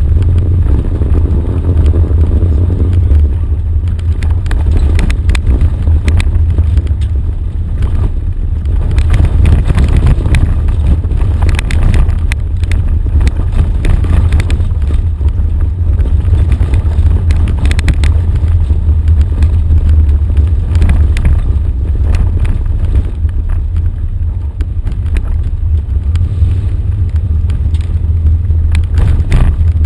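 Off-road vehicle driving down a rough dirt track: a steady low rumble with frequent knocks and rattles.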